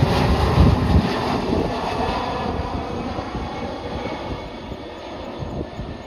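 Aircraft engine noise from a plane passing by, loud with a heavy low rumble at first, then fading steadily as it moves away.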